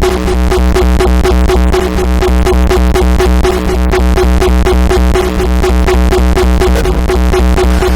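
Instrumental section of an uptempo hardcore electronic track: a fast, driving, evenly repeating synthesizer beat over a heavy, sustained bass, loud throughout.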